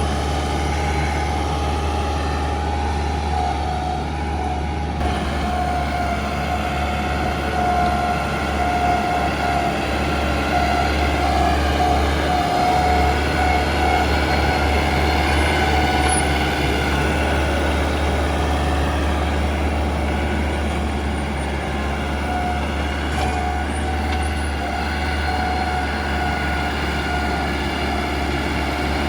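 Heavy diesel earthmoving machine running steadily, a deep engine drone with a steady high whine over it.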